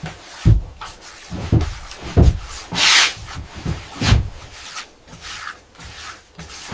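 Hand building work: irregular knocks and thumps, about seven of them, with a rasping scrape about three seconds in and fainter scrapes later.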